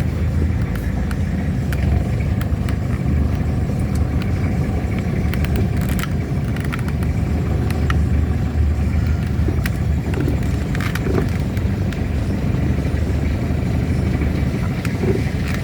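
Toyota Kijang Kapsul diesel engine running with road noise from inside the cabin while driving: a steady low drone with a few light clicks or rattles.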